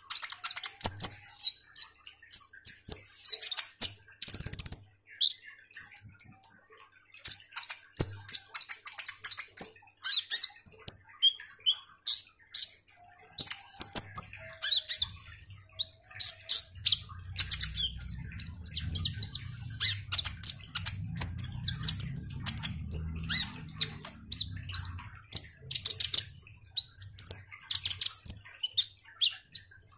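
Caged male kolibri ninja sunbird singing a fast, busy song of high chirps, trills and short slurred whistles, note after note with hardly a pause: the sustained full song keepers call gacor.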